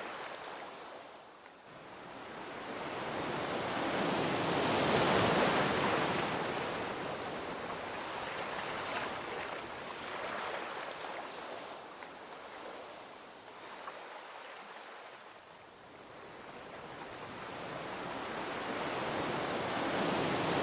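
Gentle ocean waves washing onto a beach: the surf swells to a peak about five seconds in, fades to a low lull around fifteen seconds, then builds again with the next wave.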